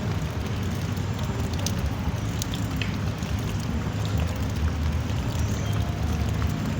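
Drizzling rain falling steadily, with scattered sharp drop ticks over a continuous low rumble.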